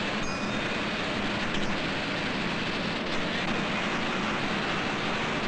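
Steady roar of factory machinery with a constant low hum.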